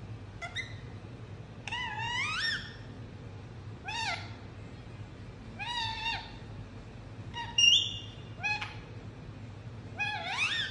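Indian ringneck parakeet calling: a string of about seven short, pitched calls a second or two apart, each gliding up and down in pitch. The loudest is a brief, steady, higher call near the end.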